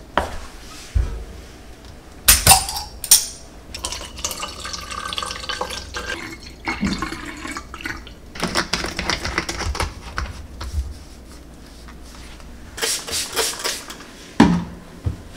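Liquid poured through a stainless-steel funnel into a bottle, running and splashing as the bottle fills, among knocks and clinks of things being handled. A cloth rubs over wall tiles near the end.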